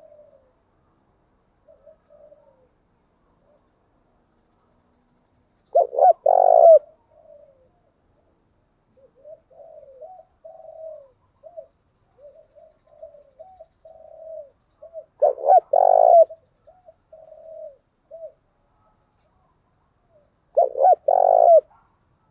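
Spotted dove cooing: three loud three-note calls, about six and five seconds apart, with softer short coos in between.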